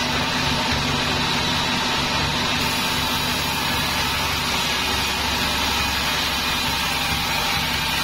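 Sawmill band saw running steadily as its blade rips along a wooden plank fed through by hand: an even, unbroken machine noise with a steady hum.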